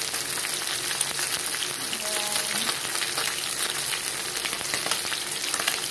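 Whole round scad (galunggong) frying in hot oil in a pan: a steady sizzle with many small crackling pops.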